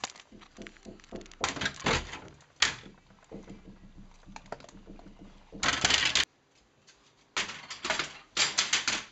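Plastic PetSafe Staywell pet flap clattering as a dog pushes at it with a crusty French breadstick in its mouth, the bread knocking against the flap. The noise comes in several separate bursts of knocks and rattles.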